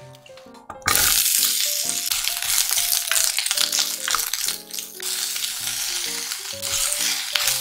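Vegetable strips hitting hot sesame oil in a cast-iron pot, starting a loud sizzle about a second in, then frying steadily as they are stirred with a wooden spatula. Carrot strips are dropped in near the end.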